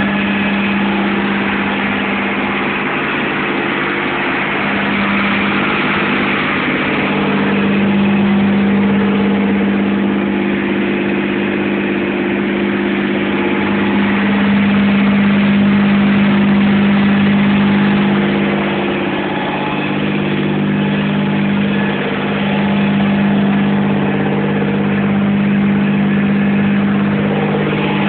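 Diesel engine of a water tanker truck idling steadily, a constant low hum that swells and eases slightly in level.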